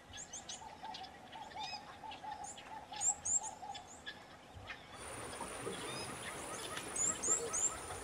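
Forest ambience: several birds chirping in short, quick sweeping notes over a rapid pulsing call that stops about halfway. About five seconds in, the background changes and a thin, steady, high-pitched tone joins, with more chirps near the end.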